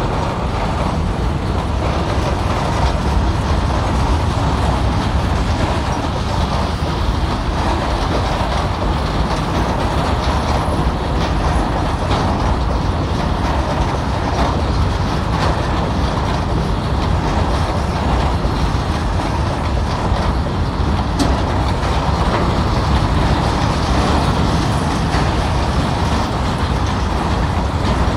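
Goods train of covered box wagons rolling past close by: a steady rumble and rattle of the wagons' wheels on the rails, with no change in level.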